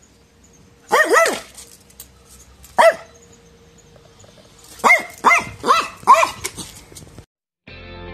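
A small long-haired dog yapping in short, high-pitched barks: a pair, then a single bark, then four in quick succession. Music starts near the end.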